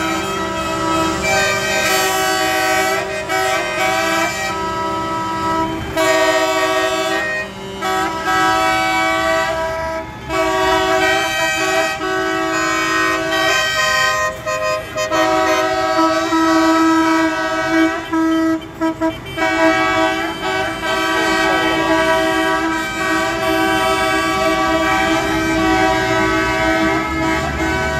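Vehicle horns on a procession of tractors blaring in long held blasts with short breaks, over the low rumble of the tractors' engines.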